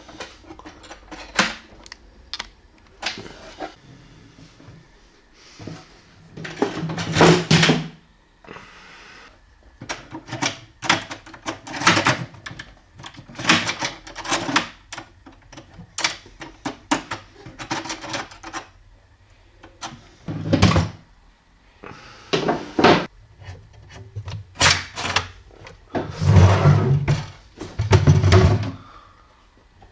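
Irregular clicks, knocks and rattles of a wooden cabinet drawer and its hardware being handled and worked on, with a few heavier thumps near the end.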